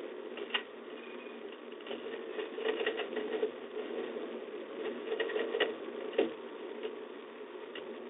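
Scattered sharp clicks and scratchy ticks, in small clusters, over a steady hiss: a peregrine falcon's talons on the nest-box grate, heard through the nest camera's microphone.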